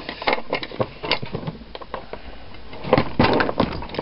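Clicks and metallic clinks of a reloading press pushing gas-checked cast lead bullets through a Lee .309 sizing die, with the bullets handled between strokes; a denser cluster of knocks comes about three seconds in.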